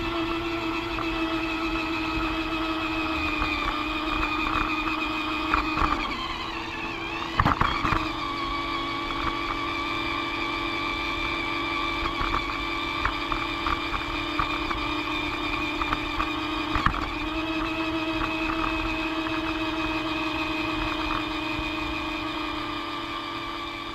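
Toy train's small electric motor running with a steady whine, its pitch dipping and wavering twice, with scattered light clicks.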